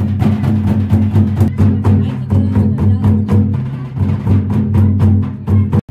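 Drum-led dance music with quick, even drum strokes over a steady low bass, cutting off abruptly near the end.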